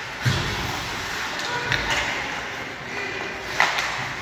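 Ice hockey play in an echoing arena: a dull thud against the boards just after the start, then sharp stick-and-puck clacks, the loudest about three and a half seconds in.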